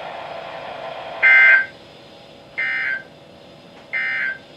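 NOAA Weather Radio SAME end-of-message code: three short bursts of screeching digital data tones, about a second apart, signalling the end of the alert message.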